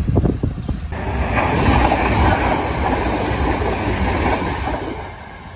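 GWR diesel multiple unit passing close by at speed. The rumble and rush of its wheels on the rails builds about a second in, stays loud, and dies away near the end.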